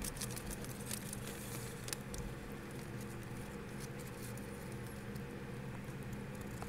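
Light crinkling and scattered small ticks from a thin plastic feeder bag being handled, with a cricket inside, over a steady low hum.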